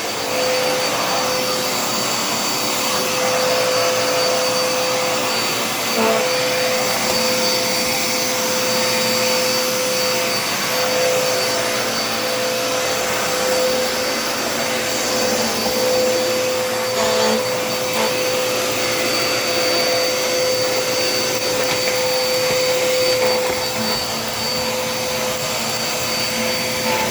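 Dirt Devil Endura Reach upright vacuum cleaner running steadily as it is pushed over the kitchen floor, its motor giving a constant whine over the rush of air.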